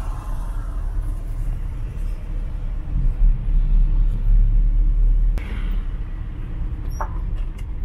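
Inside a moving taxi: steady low engine and road rumble, swelling louder from about three seconds in until just past five, with a brief sharp click soon after.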